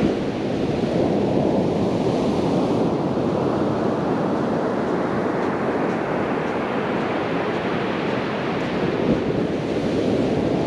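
Sea surf washing onto a sandy beach as a steady rushing hiss that swells and eases through the middle, with wind on the microphone.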